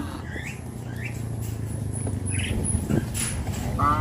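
Cattle herd moving along: a few short high chirps over a low steady rumble, then a cow starting to moo right at the end.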